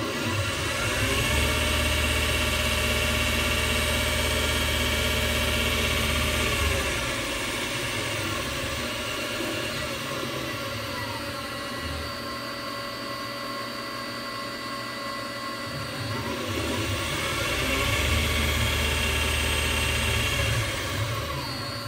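Lathe spindle and VFD-driven motor running on a new V-belt drive: a smooth, quiet whir that rises in pitch as it speeds up, holds, eases down about seven seconds in, then rises and holds again before starting to slow near the end. No belt squeal is heard.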